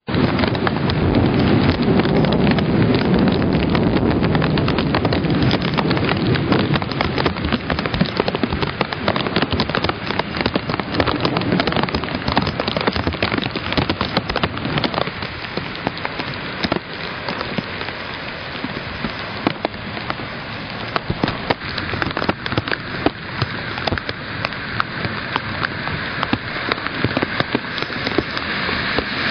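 Torrential thunderstorm rain pouring down, with dense crackling drop impacts close by. A deep rumble fills the first several seconds, and near the end a car hisses through the floodwater.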